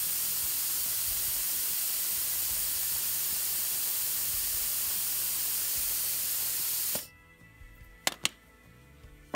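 Plasma cutter torch blowing post-flow air through its tip to cool the consumables: a steady loud hiss that shuts off automatically and abruptly about seven seconds in. A few sharp clicks follow near the end.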